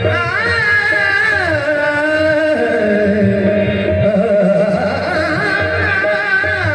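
Qawwali music: a long sung melody that glides up and falls back over held accompanying tones and tabla drumming.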